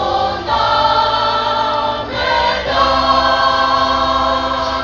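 Choir singing the closing phrase of a march, drawing out the last words on long held notes.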